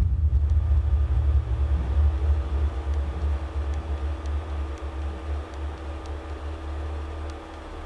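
Piezo contact microphones on taut metal wires picking up a low, wavering rumble that starts suddenly and eases off near the end, over a steady electrical hum with a few faint ticks.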